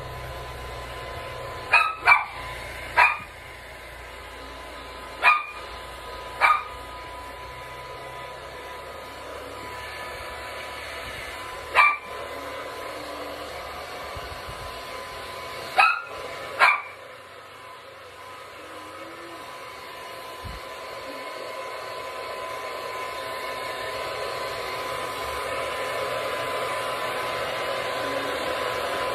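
Hand-held hair dryer running steadily with a whine, blowing on a small dog, getting louder toward the end. Over the first seventeen seconds the dog gives eight short, sharp barks.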